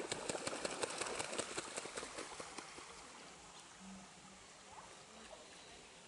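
Bar-headed goose bathing, beating its wings on the water and splashing in a rapid spatter that dies away about two and a half seconds in.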